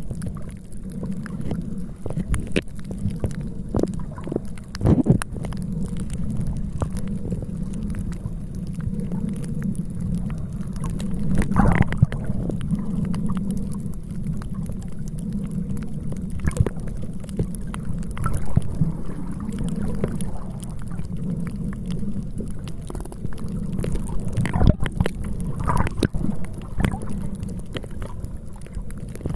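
Steady low rumble of wind buffeting the microphone, with a few louder bumps along the way.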